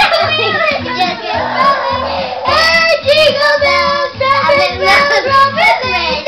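Young boys singing loudly into karaoke microphones over a karaoke backing track with a steady, repeating bass line.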